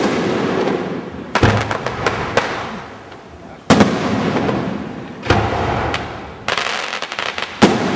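Aerial fireworks shells bursting: about six sharp bangs a second or two apart, each dying away in a long echo, with clusters of quick smaller pops after some of them.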